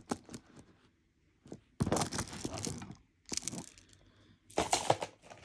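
Bead necklaces being handled: several short bouts of rustling with light clicking and rattling of beads.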